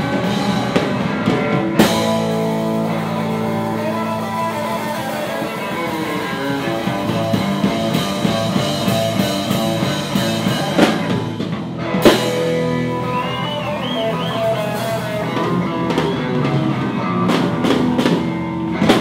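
Rock band music with electric guitar, bass and drum kit in a surf and garage-rock style, starting abruptly and cutting off near the end, with loud drum hits about two seconds in and again about twelve seconds in.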